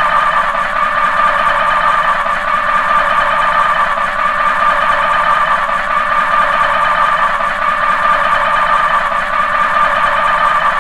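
A continuous electronic alarm buzz: one loud, steady mid-pitched tone with a fast flutter, unchanging throughout.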